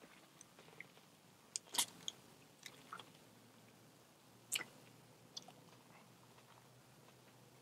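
A person chewing a big mouthful of burrito: faint wet mouth clicks and smacks, louder twice, about two seconds in and again about four and a half seconds in.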